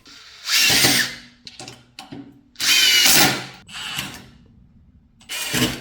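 Cordless impact driver run in three short bursts, the motor's whir mixed with the rapid hammering of its impact mechanism, the last burst brief.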